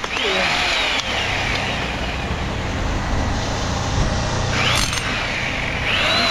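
Construction-site machinery: a steady low engine rumble, with a high whine rising and falling twice, once early and once near the end.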